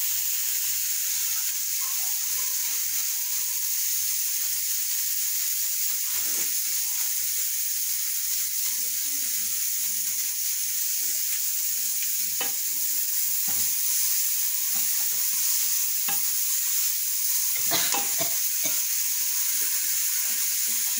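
Onions and chopped spinach sizzling steadily in a steel cooking pot, with a few knocks as the greens are stirred, the loudest cluster near the end.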